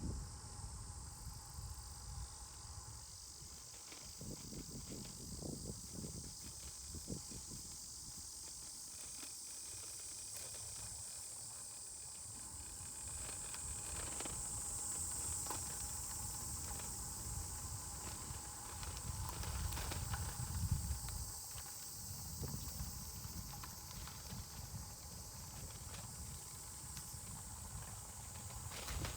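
Riverside outdoor ambience: a steady high-pitched insect drone that swells in the middle, with scattered light crunching steps and a low wind rumble on the microphone that grows louder about two-thirds of the way through.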